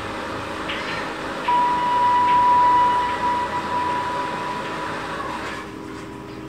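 Steady mechanical hum with a single high, steady tone held for about four seconds, starting about a second and a half in.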